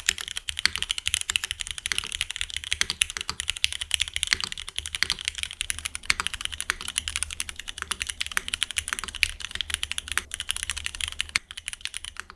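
Fast, continuous typing on a custom mechanical keyboard: a GEONWORKS F1-8X V2 aluminium-case board with lubed Cherry MX2A Black linear switches and GMK keycaps. The keystrokes stop suddenly near the end.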